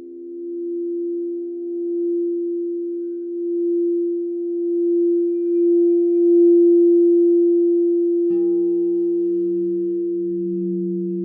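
Singing bowls ringing in long sustained tones that slowly swell and fade. About eight seconds in, another bowl is struck and joins with a lower tone.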